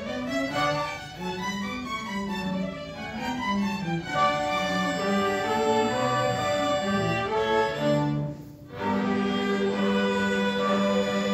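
Chamber string ensemble of violins, cello and double bass playing together, with a brief pause about eight seconds in before sustained notes resume.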